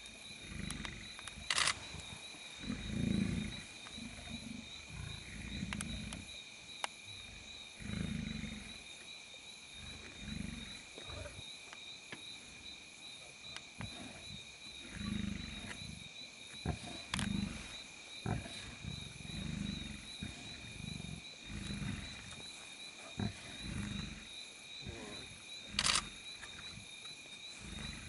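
Lions growling and snarling at one another while feeding together on a carcass, with low rough growls coming every second or two. A steady high trill of night insects runs underneath, and two loud sharp clicks come about two seconds in and near the end.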